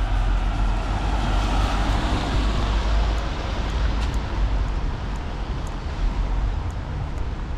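Street traffic on wet asphalt: the hiss of car tyres on the wet road swells in the first couple of seconds and then eases, over a steady low rumble.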